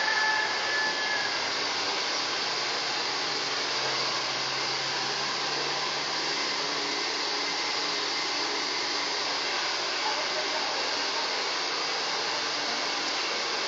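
Hair dryer running steadily, a constant blowing hiss.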